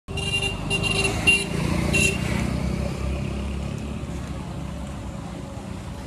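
A vehicle horn tooting four times in quick succession, all at one pitch, over the low running of a heavy diesel engine, which keeps going after the horn stops.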